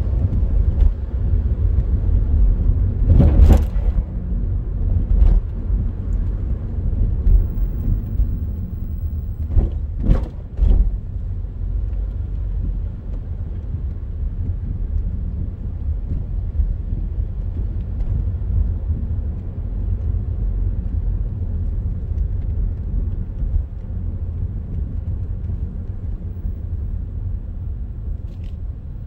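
Low, steady rumble of a car driving on a city street, with traffic around it. There are short, louder bursts about three seconds in and again around ten seconds.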